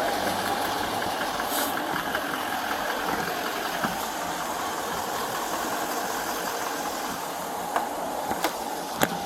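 A vehicle engine idling steadily, with a few sharp clicks near the end.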